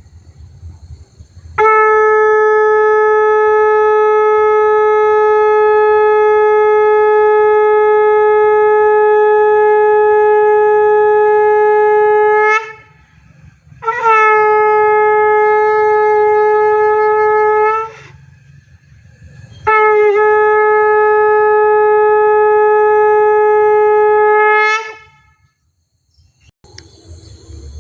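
Conch shell (shankh) blown in long, steady blasts on one held note: a long blast of about eleven seconds, then two shorter ones of about four and five seconds, with the pitch bending slightly as each blast starts and dies away. Another blast begins at the very end.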